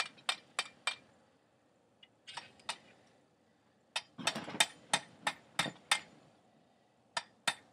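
Hand hammer striking hot steel on an anvil, drawing out a tapered end: short runs of quick, ringing blows, about three a second, broken by pauses of a second or so.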